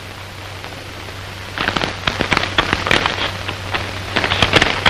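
Paper crinkling and rustling as a telegram is opened and unfolded: a run of irregular crackles that starts about a second and a half in, over a steady low hum.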